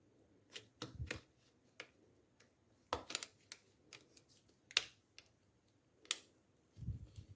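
Sharp plastic clicks and snaps at irregular intervals, about a dozen, as an HP laptop's plastic screen bezel is pressed and clipped into place around the display, with a soft low bump near the end.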